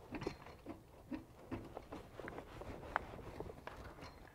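Quiet, scattered handling noise of light clicks, knocks and rustles as the curtain pipe, clamp and fabric are worked by hand, with one sharper click about three seconds in.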